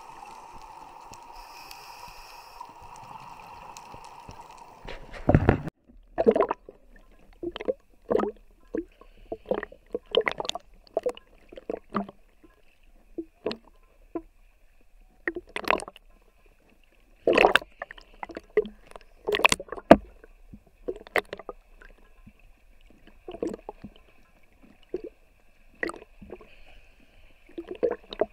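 Steady muffled hum underwater. About five seconds in, a sharp change, then small sea waves slap and splash against the camera at the surface, irregularly every second or two.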